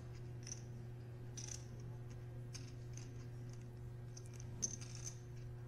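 Faint, irregular clicking of poker chips being handled and shuffled in a player's hand, over a steady low hum.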